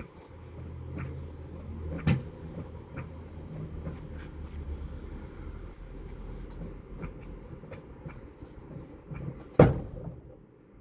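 Scattered clicks and knocks of tools and parts being handled, over a steady low rumble. There are two sharper knocks, one about two seconds in and a louder one near the end.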